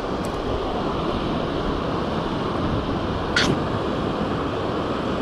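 Steady rushing of wind buffeting the microphone mixed with water running over a low river weir, with one short click about three and a half seconds in.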